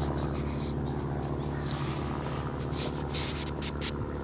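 An aeroplane flying over, a steady engine drone with an even pitch.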